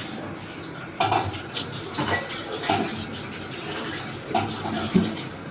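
Water splashing and pouring in a kitchen in uneven gushes, with a light clink of dishes.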